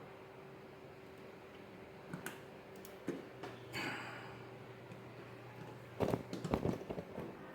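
Handling noise from fitting wires to a replacement wall outlet: a few small clicks, a short scrape, then a quick run of knocks and clicks about six seconds in, the loudest part, over a faint steady hum.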